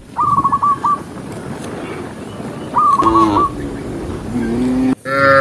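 Cattle calling: two short, high, wavering calls, then lower drawn-out moos, with a loud moo starting near the end.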